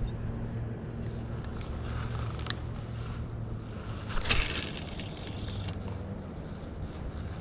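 A steady low motor hum, with one sharp click about two and a half seconds in and a brief rush of noise just past halfway.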